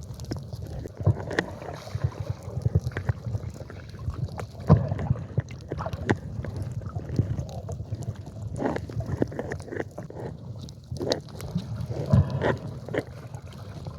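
Sea water sloshing and gurgling, muffled and low, with irregular sharp knocks and splashes throughout.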